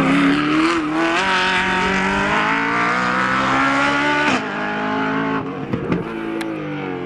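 Open-cockpit prototype race car's engine accelerating hard out of a hairpin, its pitch climbing steadily and dropping at two upshifts, about four and five and a half seconds in, then growing fainter as the car pulls away uphill.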